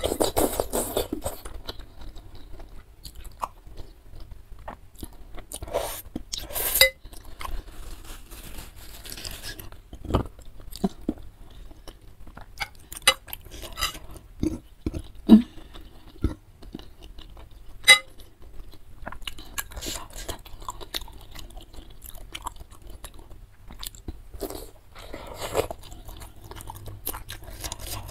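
Close-up eating sounds of a mouthful of beef tendon meatball and glass noodles being chewed: wet smacking with many short crunchy clicks. A louder burst comes at the start as a spoonful goes into the mouth, and a few sharper clicks come through the middle.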